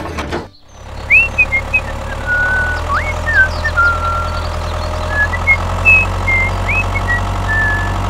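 Tractor engine running steadily with a low rumble, starting about half a second in, with birds chirping over it.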